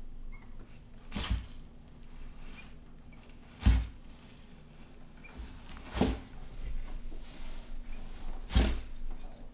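Four dull thuds a couple of seconds apart: an Argus monitor lizard shaking a quail chick held in its jaws and knocking it against the floor of a plastic tub.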